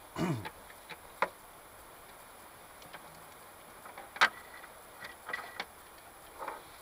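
Scattered metallic clicks, clinks and light scrapes of parts and tools being handled on an engine's cylinder head during reassembly. A short falling creak comes right at the start, and the loudest sharp clink, about four seconds in, rings briefly.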